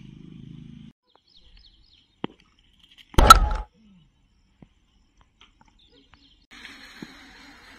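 One loud, sharp crack a little over three seconds in: a cricket bat striking the ball on a helicopter-shot swing, with a short ringing tail. Faint bird chirps in between.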